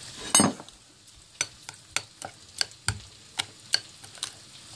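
Metal spoon stirring a creamy sauce in a ceramic bowl, clinking against the bowl's sides about three times a second. A louder, longer noise comes about half a second in.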